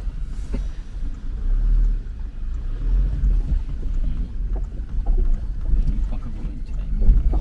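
Toyota Hilux engine and drivetrain rumbling while crawling slowly over rough off-road ground, the engine note rising and falling a little with the throttle.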